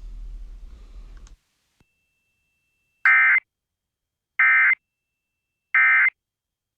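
Emergency Alert System end-of-message signal: three short, identical bursts of SAME digital data tones with about a second of silence between them, marking the end of the alert.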